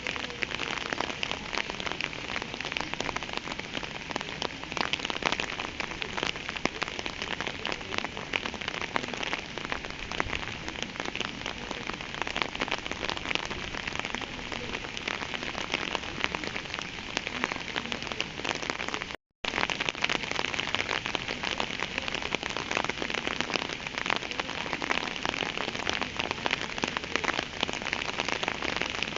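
Steady rain falling, a dense patter of many drops. The sound cuts out completely for a split second about two-thirds of the way through, then resumes unchanged.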